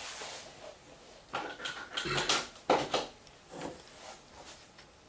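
Hands handling small hard parts and wires at close range: a series of irregular light clicks, knocks and rustles.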